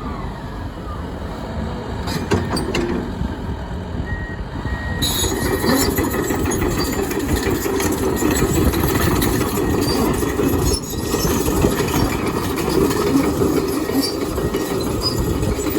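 Komatsu HB215LC-2 hybrid hydraulic excavator running, its engine and hydraulics working harder and louder from about five seconds in.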